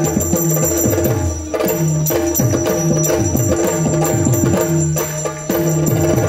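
Yakshagana instrumental accompaniment: repeated drum strokes with ringing hand cymbals over a steady held drone, without singing. The playing dips briefly twice and picks up again.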